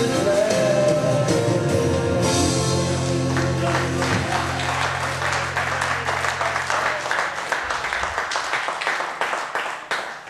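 Gospel band holding a sustained closing chord that stops about seven seconds in, while the congregation claps and applauds, the clapping thinning out near the end.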